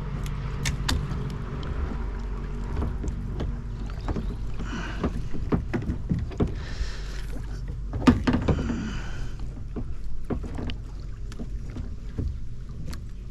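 Handling noise in a small boat: scattered knocks and taps against the hull and gear over a steady low hum, with a few stretches of splashy rustling in the middle and the sharpest knock about eight seconds in.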